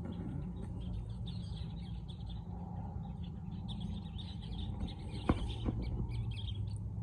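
Small birds chirping in the background, over a steady low hum, with one sharp click about five seconds in.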